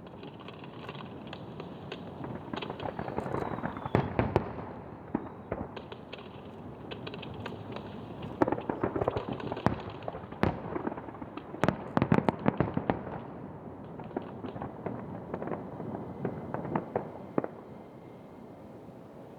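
Starmine fireworks display: aerial shells bursting in quick volleys of sharp cracks and booms over a continuous rumble, thinning out near the end.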